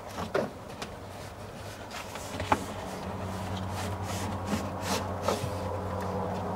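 Handling noises as a plastic trim piece is fitted at the car's engine bay: a few light clicks and knocks, the sharpest about two and a half seconds in, with cloth rustling on the bodywork. A steady low hum comes in about halfway and holds.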